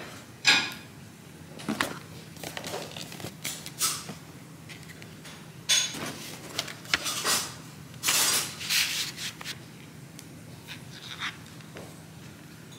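Cardboard jewelry boxes and a paper gift bag being handled and opened: scattered rustles, scrapes and light knocks, the busiest stretch about eight seconds in, over a faint steady low hum.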